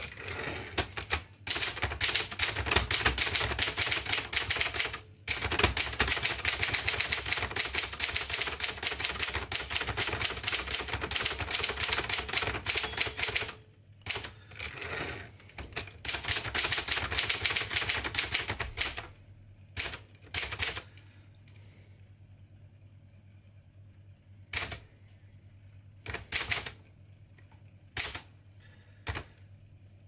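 1958 Adler Special manual typewriter being typed on: fast, dense clacking of keystrokes with two short pauses, thinning out about two-thirds of the way through to a few single strikes spaced a second or two apart.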